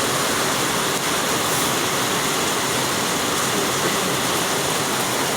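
Steady rushing noise of water, with no breaks or separate impacts.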